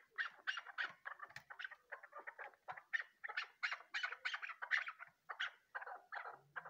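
Chukar partridge calling a steady, rapid series of short clucking notes, about four a second.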